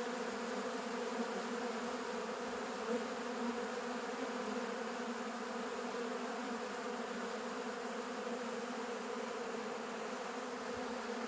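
Honeybees buzzing around an open hive with its frames exposed: a steady, even hum from many bees at once.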